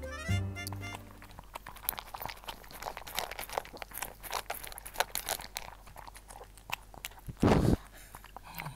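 A Shih Tzu crunching dry kibble from a stainless steel bowl, close to the microphone: irregular crisp crunches and clicks, several a second. A short music jingle dies away in the first second, and a single loud, deep thump comes about seven and a half seconds in.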